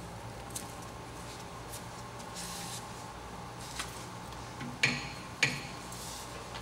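Tailstock of a Mori Seiki MS-850 engine lathe being worked by hand: a few light metal clicks, then two sharp metal clunks about half a second apart near five seconds in, over a steady low hum.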